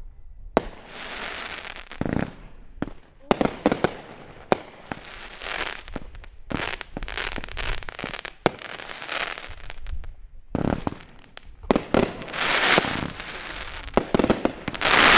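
Aerial fireworks bursting: a string of sharp bangs, each followed by crackling and hissing as the sparks spread, with the loudest burst near the end.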